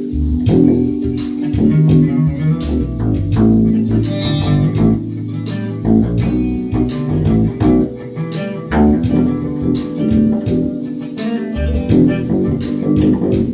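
Bass guitar being played: a continuous run of plucked notes.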